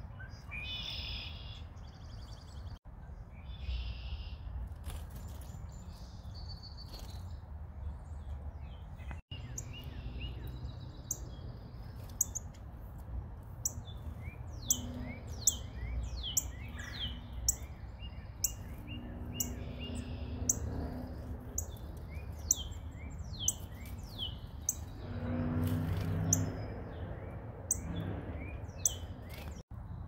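Small songbirds chirping: short, high, downward-sliding chirps, few at first and then coming thick and fast, over a steady low background rumble.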